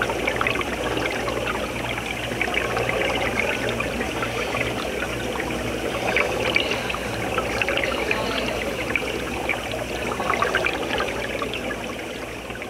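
Aerated water splashing and bubbling in a live seafood tank: a steady rush dotted with many small bubbling pops, over a low steady hum.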